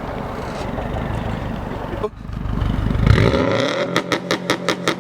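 Mitsubishi Eclipse GST's turbocharged four-cylinder pulls hard, then lets off and the turbo flutters: a fast chatter of about seven pulses a second. This is compressor surge, heard because the blow-off valve is disconnected from the intake manifold.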